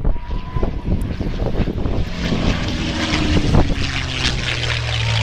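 P-51 Mustang's V-12 piston engine and propeller sound building about two seconds in as the fighter flies past, its note sinking slightly in pitch. Wind buffets the microphone throughout.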